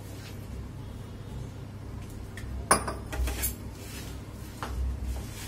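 Hands kneading flour into dough in a steel plate, the plate knocking and clinking now and then, with one sharp clink a little under three seconds in.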